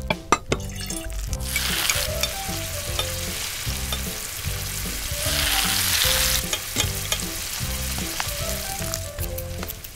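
Chopped onion, spices and tomato sizzling in hot oil in a tiny stainless steel pan while a spoon stirs them. The sizzle starts a little over a second in and is loudest from about five to six and a half seconds in.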